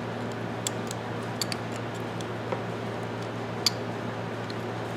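A few scattered light clicks of small metal parts of a Craftsman 3/8-inch ratchet being handled, the sharpest near the end, over a steady low hum.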